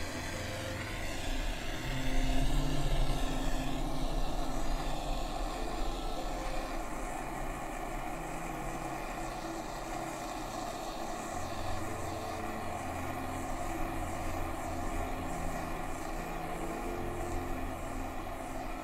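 Acetylene torch flame running with a steady rushing hiss as it heats pewter in a ceramic crucible; it gets louder about two seconds in, then holds steady.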